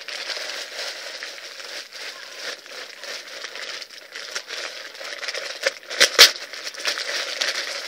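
Plastic packaging crinkling and rustling as bagged nail-art supplies are handled, with two sharp knocks close together about six seconds in.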